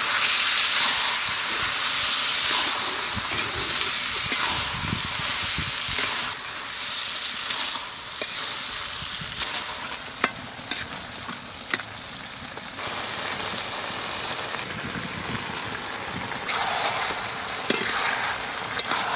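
Cabbage and potato curry sizzling in a wide metal pan while a spatula stirs and scrapes through it, with sharp clicks of the spatula against the pan now and then. The sizzle is loudest in the first few seconds and settles lower in the second half.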